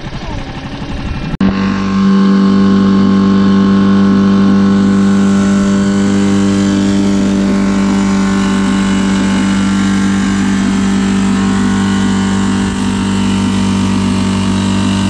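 Brand-new Tohatsu 6 hp four-stroke outboard running in a test tub of water on its break-in run. About a second and a half in, after a sharp click, its note steps up to a louder, steady hum and holds there.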